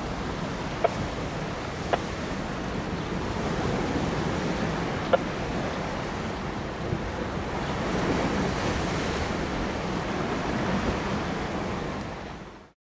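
Wind gusting on the microphone over choppy, wind-driven river water, a steady rushing noise with a few brief sharp clicks. The sound cuts out near the end.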